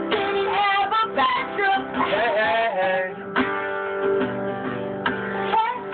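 Acoustic guitar strummed in an acoustic punk song, with a voice singing a line over it in the first three seconds; after that, strummed chords are left ringing.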